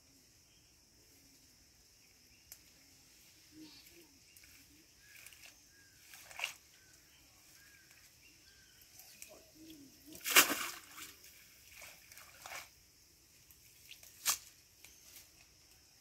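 Scattered splashes and sloshing of pond water as a cast net is drawn out of the water by hand. The loudest splash comes about ten seconds in, with smaller ones around it.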